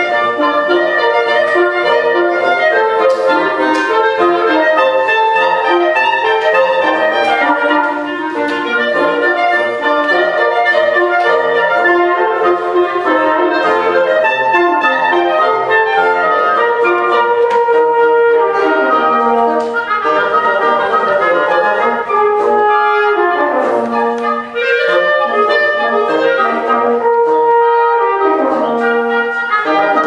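Woodwind quintet playing live, flute and bassoon among the parts, in a busy passage of many quick notes sounding together.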